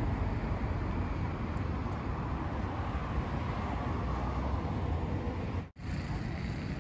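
Steady outdoor roadside noise with a strong low rumble. It drops out for a split second near the end, then carries on.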